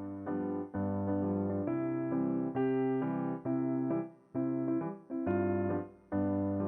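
Background music: gentle piano playing chords and a melody, with notes that ring and fade and short pauses between phrases.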